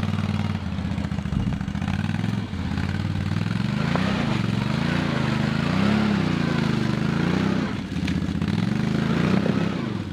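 Can-Am Outlander L 570 XMR ATV's Rotax 570 V-twin engine working in high range as the quad drives through a mud hole, revving up and down several times in the middle as the rider works the throttle, with the tyres churning through mud.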